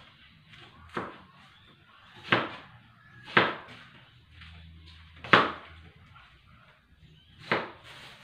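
Five sharp knocks or thumps, unevenly spaced about one to two seconds apart, each loud and short with a brief ring after it.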